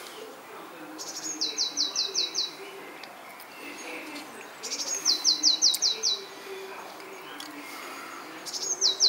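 A songbird singing the same short phrase three times, about four seconds apart. Each phrase is a brief high note followed by five or six quick, clear whistles that slur downward.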